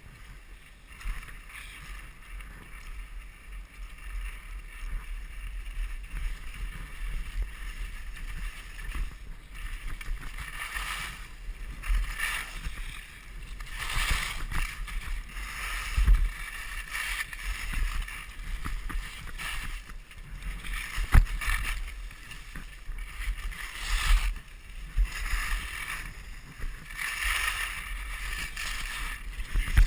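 Skis hissing over snow through a series of turns, the hiss swelling and fading with each turn, over a low rumble of wind buffeting the camera microphone. A couple of sharp knocks stand out, in the middle and a few seconds later.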